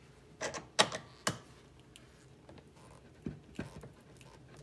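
Channel-lock pliers working a heated rivet loose from a Ski-Doo ski loop, with sharp metal clicks and taps. There are three clicks in the first second and a half, the middle one the loudest, and two fainter ones about three and a half seconds in.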